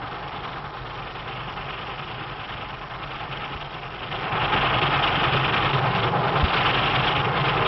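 Steam locomotive running, the noise growing clearly louder about four seconds in as the engine comes into view working hard, heard on an early sound-film soundtrack.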